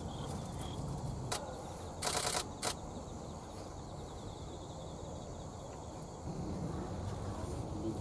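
Common kingfisher threat calls in a territorial dispute: one sharp note a little over a second in, then a quick rattling burst of calls about two seconds in and one more sharp note just after, over a low steady rumble.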